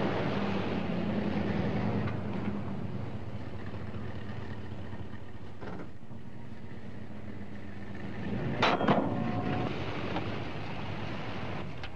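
A 1972 Chevrolet pickup's 350 V8 engine running steadily, easing a little after the first couple of seconds, with a brief louder noise about nine seconds in.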